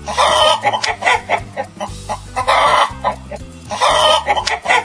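Chicken clucking sound effect in three loud bursts about a second and a half apart, with quieter clucks between, over bouncy children's backing music.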